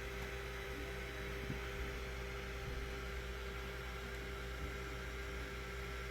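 Steady background hum with faint hiss: room tone carrying a constant electrical hum.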